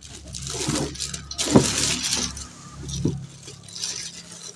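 Rustling of packaging and light metal clinks as a kitchen knife set and its holder are handled and unwrapped, with a sharper knock about a second and a half in.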